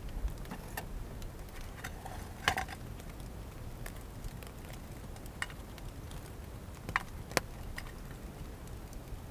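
A few light clinks and taps of a spoon and utensils against a metal cooking pot and frying pan, the loudest a short cluster about two and a half seconds in, then single clicks near the end, over a steady low background.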